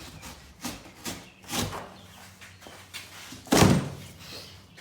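Large cardboard shipping box being cut open with a pocket knife and its flaps pulled open. Several short scraping rustles are followed by one loud cardboard thump about three and a half seconds in.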